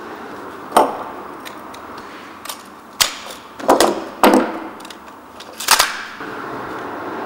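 Sharp plastic-and-metal clicks and clacks as a Quik Drive collated-screw attachment is snapped onto a screw gun and its extension and feed head are handled, about six irregularly spaced, some doubled.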